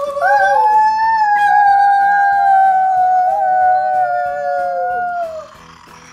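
WowWee Untamed Fingerlings Dire Wolf toy playing its electronic wolf howl: one long, loud howl of about five seconds that rises at the start and then slowly sinks in pitch before fading. Background music with a steady beat runs underneath.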